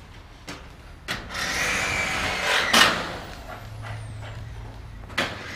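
Scattered sharp knocks and clanks from work on a metal carport, the loudest near the three-second mark. Under them is a broad rushing swell that builds from about a second in and fades after the loudest knock, followed by a low steady hum.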